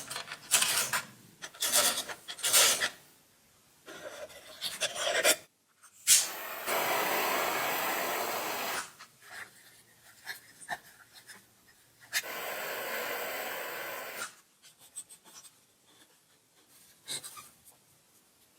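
Abrasive work on wood: a run of short rasping strokes, then two steady hissing passes of about two seconds each, with scattered light knocks near the end.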